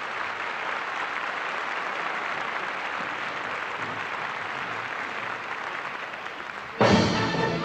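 Steady crowd applause, then music cuts in suddenly and louder near the end.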